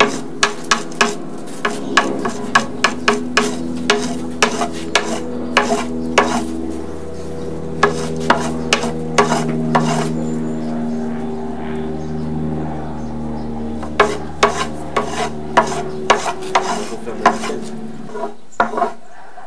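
Flax being scutched: a wooden scutching knife beats the fibres against an upright wooden scutching board. It gives sharp wooden knocks about three times a second, in two runs with a pause of a few seconds between them, over a steady low hum.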